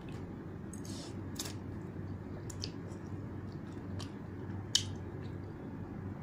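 Someone eating instant noodles with a fork and spoon: a few short slurping and chewing noises and a sharp clink of metal cutlery on the bowl near the end, over a steady low hum.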